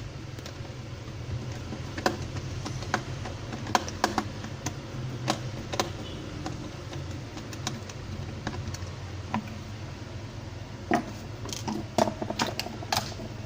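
Scattered light clicks and taps of small plastic and metal parts: a Phillips screwdriver working the screw on a digital multimeter's battery cover, and the cover being handled to reach the 9-volt battery. A steady low hum runs underneath.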